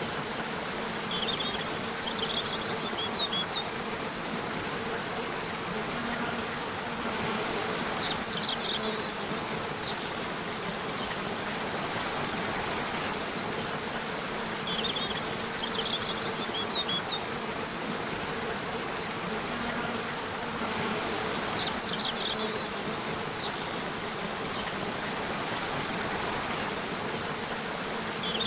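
Nature soundscape: a steady rushing hiss like running water, under a buzzing insect drone, with clusters of short high chirps about every seven seconds.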